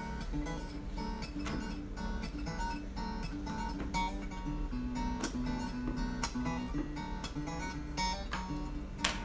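Background music: an acoustic guitar arrangement, plucked and strummed, with a sharp click near the end.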